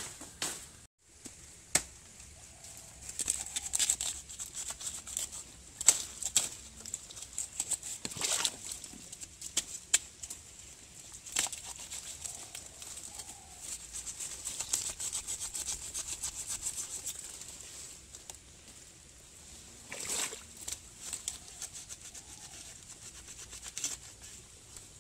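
Rustling and crackling of dry leaf litter and undergrowth as plants are handled, with many scattered snaps and clicks; a faint steady high hiss runs underneath.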